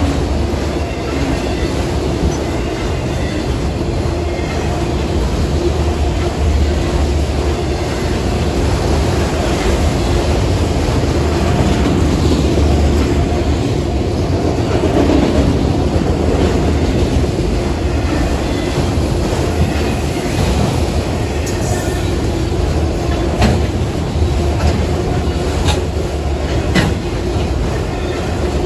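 Freight train of autorack cars rolling through a grade crossing: a continuous loud rumble of steel wheels on rail, with a few sharp knocks in the second half.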